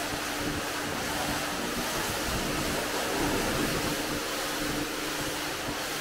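Steady hiss of water spraying, with a faint steady hum underneath.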